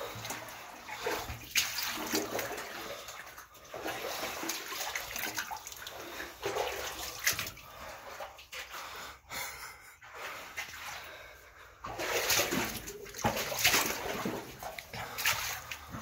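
Footsteps splashing and sloshing through shallow water on a tunnel floor, in irregular surges as someone wades along.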